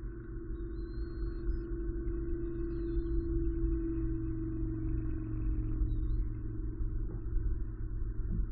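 Soft ambient background music of sustained tones that swell near the middle, over a steady low rumble.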